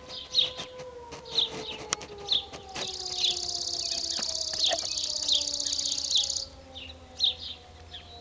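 Tornado siren about a mile off, winding down: its steady tone starts sliding slowly lower about a second in. Over it a bird chirps repeatedly, about twice a second. A rapid high buzzing trill, the loudest sound, runs for about three and a half seconds in the middle.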